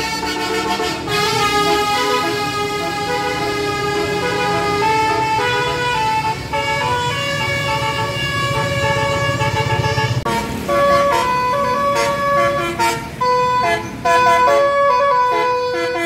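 Bus telolet horn, a bank of tuned air horns, playing a tune. Chords are held in the first half, then a quick run of changing notes follows in the second half, over the low rumble of the bus engine.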